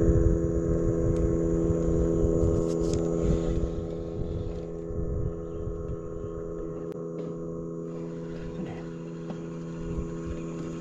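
A boat engine humming steadily at a constant pitch, with wind rumbling on the microphone that eases after about four seconds.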